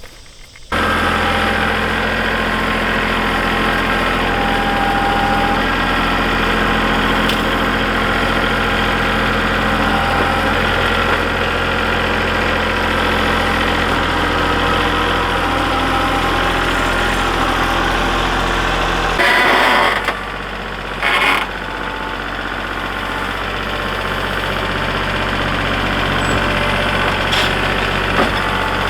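An engine running steadily, cutting in abruptly a little under a second in. About two-thirds of the way through, its low hum drops and two short, loud, noisy bursts stand out over it.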